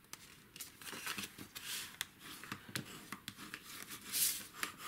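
Stiff cardstock being handled and slid across a cutting mat, with light rustles and ticks, then a louder scraping swish about four seconds in as a bone folder is drawn along the card to crease it.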